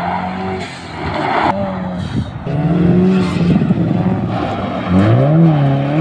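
Turbocharged Subaru flat-four boxer engines of rally cars on and off the throttle through a gravel motorkhana course: revs hold, break off and pick up again several times, with a rise and fall in revs near the end. Loose gravel and tyres scrubbing hiss underneath.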